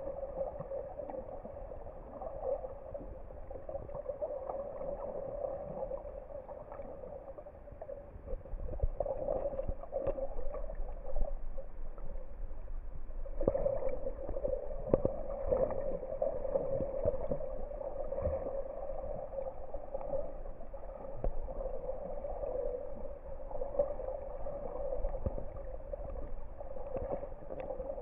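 Muffled underwater noise picked up by a camera held below the surface: a steady hum-like wash with scattered small clicks and gurgles, getting louder about eight seconds in.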